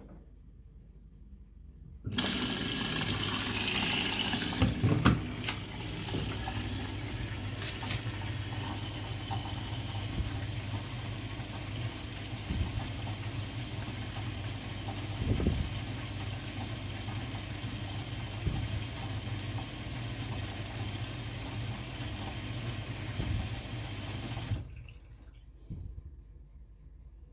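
Front-loading washing machine filling with water: water rushing into the machine with a steady low hum, starting suddenly about two seconds in and cutting off shortly before the end, with a couple of brief knocks along the way.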